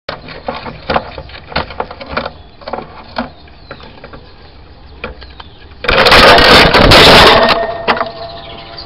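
Irregular sharp knocks, cracks and scraping from a hyacinth macaw working at a trail camera with its beak right at the camera's microphone. About six seconds in comes a loud, harsh burst lasting about a second and a half.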